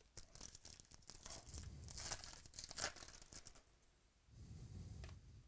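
A baseball card pack's wrapper being torn open and crinkled, a dense crackling that lasts about three and a half seconds. A shorter, softer rustle follows near the end as the cards are handled.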